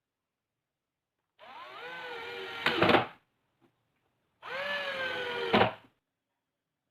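A small electric power tool's motor runs twice, about a second and a half each time. Its whine climbs in pitch as it spins up, then sags slightly, and each run ends with a sharp knock just before the motor stops.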